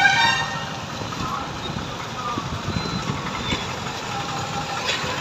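Street traffic: vehicle engines running and passing at a road junction.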